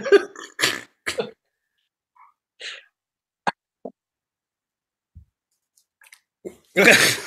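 A woman's short breathy vocal sounds, not words: several quick bursts in the first second, a few faint clicks in the middle, and a louder burst near the end.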